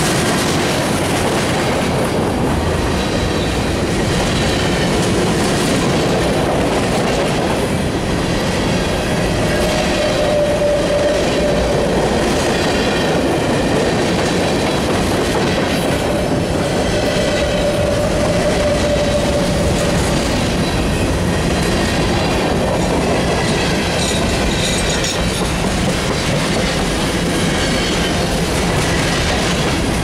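Steel wheels of loaded freight cars, open and covered hoppers, rolling steadily past close by, rumbling and clacking over the rail joints. A thin squealing tone comes and goes twice around the middle.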